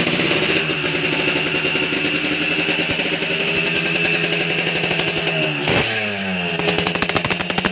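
Modified Yamaha RX-Special two-stroke motorcycle engine running with its throttle held up, its exhaust note crisp and high-ringing ('kemlinting'); just before the last two seconds the throttle drops briefly, then it is blipped in several quick revs.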